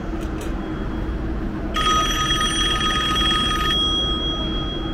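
A telephone ringing: one trilling ring about two seconds long, over a steady background hum. It is an incoming call coming through.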